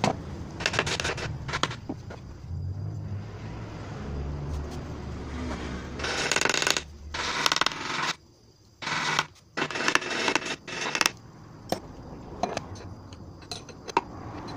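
Hammer tapping on a Yamaha TZM 150 crankcase to knock the case halves loose from their dowel pins while it sits in a crankcase puller: clusters of quick metallic taps about six seconds in and again about nine to eleven seconds in, between scattered clicks of tools on the metal case.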